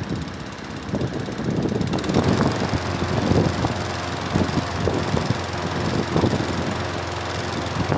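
Push lawnmower's Briggs & Stratton 650E series single-cylinder engine running steadily after a cold start, getting louder about two seconds in, with wind buffeting the microphone.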